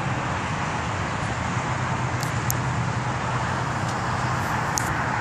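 Steady roar of highway traffic passing close by, with a few short high ticks over it.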